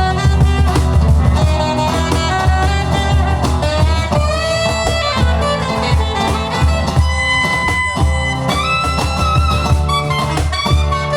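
Live band music: a lead instrument plays a melody of long held notes over a steady bass and drum beat.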